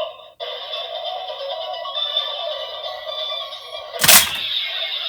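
DX Seiken Driver toy belt playing its finisher sound effect with two Wonder Ride Books loaded: electronic music and effects from its small built-in speaker, with a loud slash hit about four seconds in.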